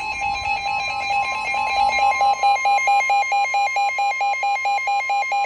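Emergency Alert System attention tone: a loud electronic alarm, one tone pulsing rapidly at about six beats a second over a steady higher tone, cutting off suddenly at the end, which signals that an emergency warning message follows.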